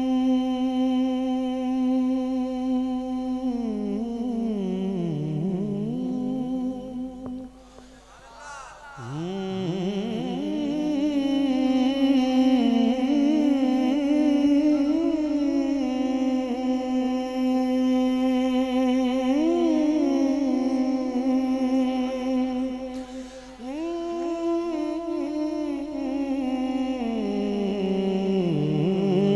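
A man's voice sings a naat over a PA, drawing out long held notes without words. The notes slide down a little before 4 s, break off briefly about 8 s in, then rise and are held again.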